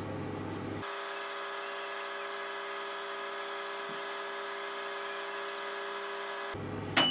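Microwave oven running with a steady electric hum while drying a damp pillowcase. Near the end the cycle ends with a sharp metallic ding that rings and fades over about a second.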